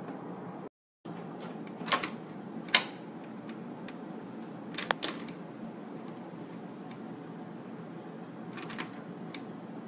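A cat pawing and clawing at a treadmill's plastic frame and handlebar: a few sharp clicks and taps, the loudest about three seconds in, over a steady low hum. The sound cuts out completely for a moment about a second in.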